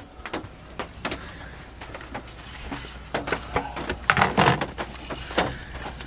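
Scattered light knocks and clatter of dishes and kitchenware being handled while a meal is served, with a louder cluster about four seconds in.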